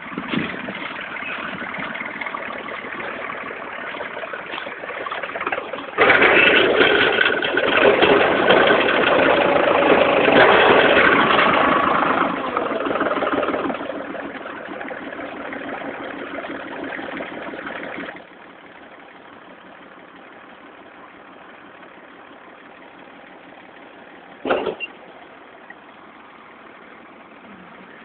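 IHC 633 tractor's diesel engine running, then revved much louder for several seconds from about six seconds in, typical of the tractor pulling a tree. It settles back and then drops suddenly to a quieter steady running sound, with a single brief knock near the end.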